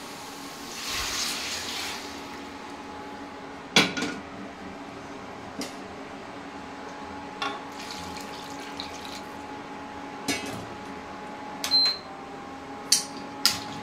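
Hot water poured from a frying pan into a karahi of cauliflower and potato masala, with a brief hiss about a second in. Then a metal spatula scrapes and knocks against the karahi several times as the curry is stirred.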